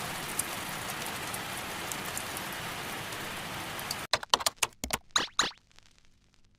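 Steady rain falling for about four seconds, cutting off suddenly, followed by a few sharp clicks.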